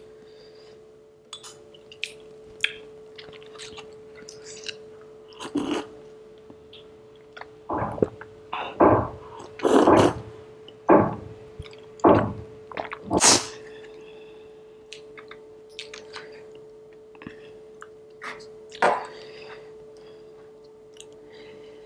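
Close-miked eating sounds: soft chewing and spoon clicks, then a run of loud slurps and swallows from a cup between about eight and thirteen seconds in, with one more near the end. A faint steady hum sits underneath.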